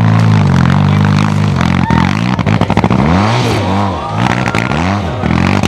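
Sidecar outfit's motorcycle engine pulling hard up a steep, loose rocky climb. It holds a steady note for about two seconds, then its revs rise and fall again and again as the rear wheel scrabbles for grip, with a sharp knock about two seconds in.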